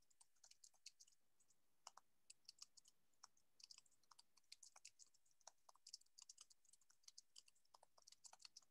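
Faint computer keyboard typing: irregular key clicks coming in short runs.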